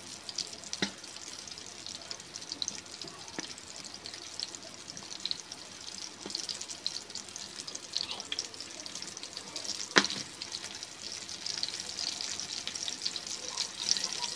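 Hot cooking oil sizzling and crackling in a frying pan around battered frogs, with a sharp tick about ten seconds in. The sizzle grows louder near the end as a second battered frog is laid into the oil.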